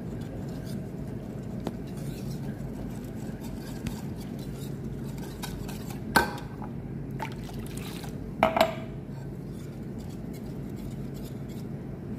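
Wire whisk stirring powdered milk and water in a metal pot, with faint rapid scraping, a sharp clink against the metal about six seconds in and two quick clinks around eight and a half seconds.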